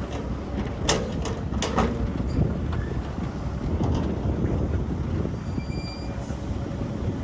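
Heavy diesel construction machinery running with a steady low rumble, with four sharp metallic clanks in quick succession about a second in, as from an excavator working dirt into a dump truck.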